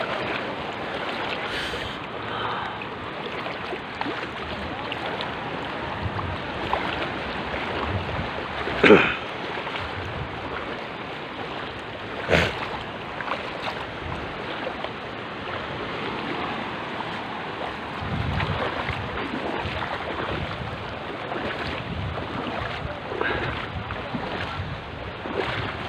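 Small sea waves washing in the shallow surf, with wind on the microphone. Two brief sharp sounds cut through, about nine seconds in and again some three seconds later, the first the louder.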